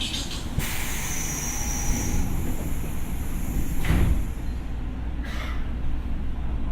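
Inside an ex-Tokyo Metro 6000 series electric train: a sudden hiss with a high whine about half a second in, then a knock about four seconds in, over a steady low rumble.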